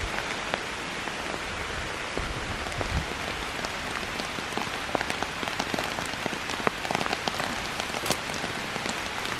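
Steady rain falling, with many separate drops ticking sharply on a nearby surface.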